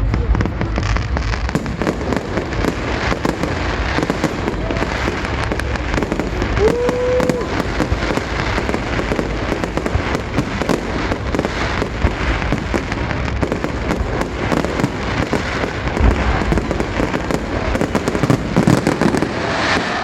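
Aerial fireworks display: dense, continuous crackling and popping bursts over a low rumble of booms.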